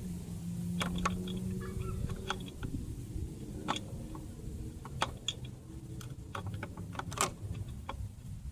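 Scattered sharp metallic clinks and knocks of hand tools and parts during wheel hub work, about six in all and irregularly spaced, over a low steady hum.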